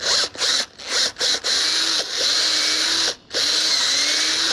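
Cordless drill boring a pilot hole for a nail into a wooden post. It starts with a few short trigger bursts, then two longer runs with a brief stop about three seconds in, the motor pitch sagging and recovering as the bit bites into the wood.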